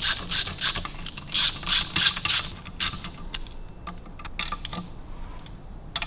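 Socket ratchet clicking in quick back-and-forth strokes as crankcase nuts are run down and nipped up, about three strokes a second. After about three seconds the clicking thins to a few light ticks.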